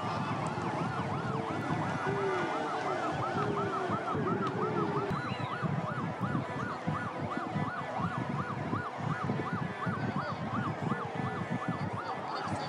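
Siren on a fast yelp, its pitch rising and falling about three times a second, over a steady background din.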